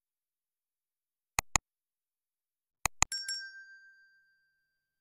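Subscribe-button animation sound effects: two quick mouse clicks, then two more about a second and a half later, followed by a bright bell ding that rings out and fades over about a second.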